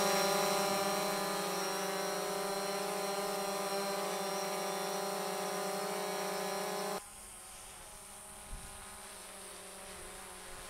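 Camera drone's propellers buzzing steadily in a hover, several steady pitches at once. About seven seconds in, the sound drops suddenly to a fainter buzz.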